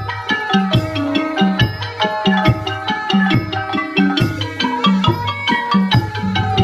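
Thai folk piphat ensemble playing: quick struck melody notes over regular drum beats, in a dense, steady rhythm.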